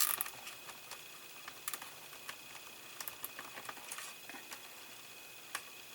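Faint, scattered small clicks and handling noises of a plastic cable tie being threaded around a bundle of model wiring and worked tight, with a sharper click at the start.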